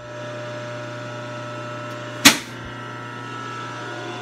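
Steady electrical hum of a running rotary phase converter. About two seconds in comes a single loud clunk of a heavy disconnect switch being thrown on.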